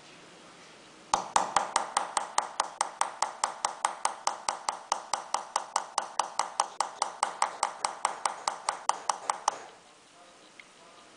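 A small hammer tapping a steel engraving chisel into a silver sheet bedded in pitch, in quick even strikes about five a second. The tapping starts about a second in and stops near the end.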